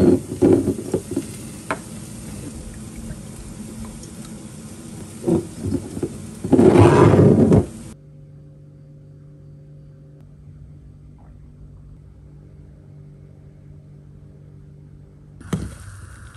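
Glass cruet bottles knocking and being set down on a stone countertop, with a louder noisy scrape about seven seconds in. After a sudden cut, a low steady hum with several faint tones, and near the end a steady hiss starts.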